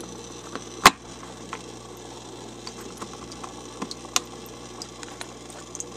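Aquarium power filter running: a steady hum with scattered clicks and ticks from its impeller, the loudest about a second in and another about four seconds in. The owner believes something is wrong with the impeller, since he sees no air bubbles to explain the noise.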